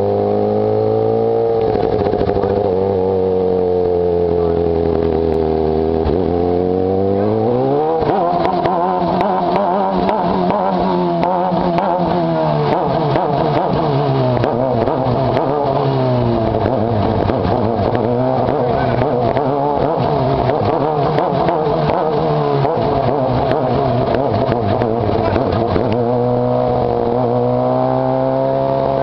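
Sportbike engine running on a wheelie machine rig, the revs climbing sharply about eight seconds in and held high with a rough edge, easing in the middle and rising again near the end.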